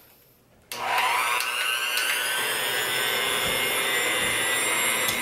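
Electric hand mixer switched on under a second in, its motor whine rising as it spins up and then running steadily while the beaters cream butter and brown sugar; it cuts off at the very end.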